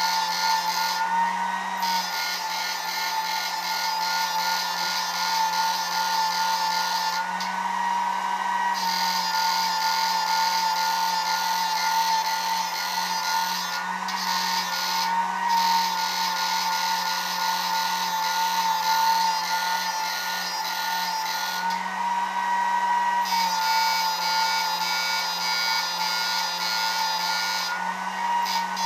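Homemade ultrasonic fishing inverter running under test: a steady high-pitched electronic whine with overtones over a low hum. A hissing buzz switches in and out every few seconds as the circuit changes mode.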